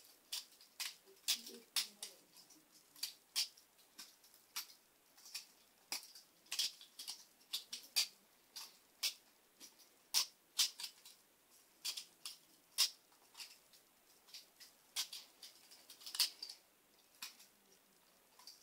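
Titanium balisong (butterfly knife) being flipped: an irregular run of sharp metallic clicks, a few each second, as the handles swing open and shut.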